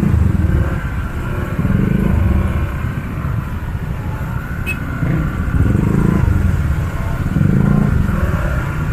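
Dense street traffic of motorcycles and cars, engines running and swelling loud several times as they pass close by.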